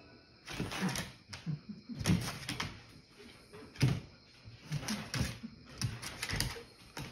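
Two dogs play-fighting: short growls and snarls in irregular bursts, with scuffling and clicks of paws on a wooden floor.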